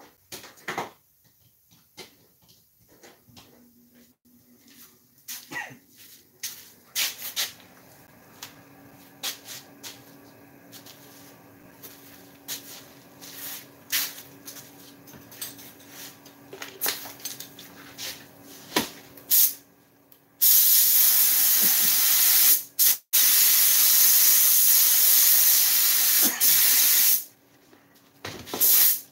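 A loud, steady spraying hiss lasting about six seconds, with a short break partway through, begins about two-thirds of the way in. Before it come scattered clicks and knocks of handling over a faint hum.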